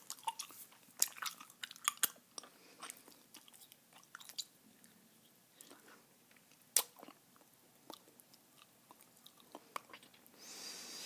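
Close-miked chewing of a mouthful of Bazooka bubble gum, with wet clicks and snaps of the gum, thick at first and then sparser, and one sharp snap about two-thirds through. Near the end comes a hiss about a second long.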